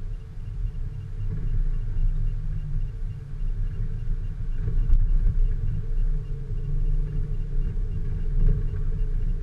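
Off-road vehicle engine running with a steady low drone, and a single click about five seconds in.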